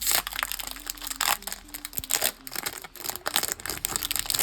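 Foil trading-card pack wrapper crinkling and tearing as a pack is opened by hand, a dense irregular crackle with no steady rhythm.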